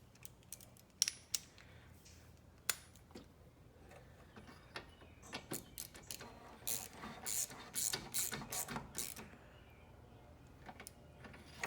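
Ratchet wrench clicking in short runs as a new A/C refrigerant pressure switch is turned down onto its fitting, with a few scattered knocks of tools and parts before it.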